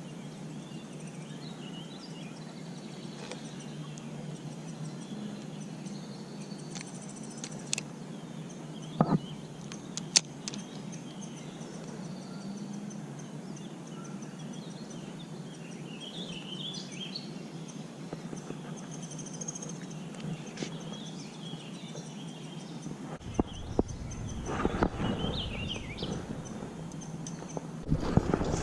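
Outdoor ambience with scattered bird chirps over a steady background hiss, broken by a few sharp clicks. Low rumbling noise sets in near the end.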